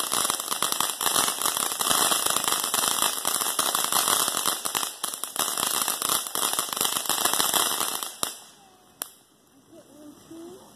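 Ground fountain firework spraying sparks with a dense, continuous crackle that cuts off about eight seconds in. A single sharp pop comes about a second later.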